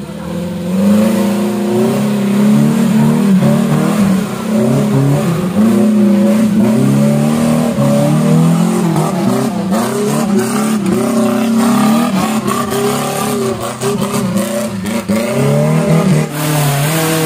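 Suzuki four-wheel-drive off-roader's engine revving hard, its pitch rising and falling over and over as it powers through deep mud.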